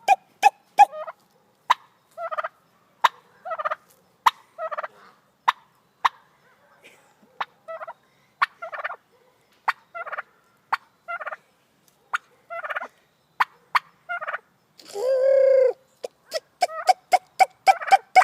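White domestic turkey hen calling: a long series of short, sharp clucking notes, about one to two a second, which the owner likens to hiccups. About fifteen seconds in she gives one longer, lower call, then the short notes come quicker.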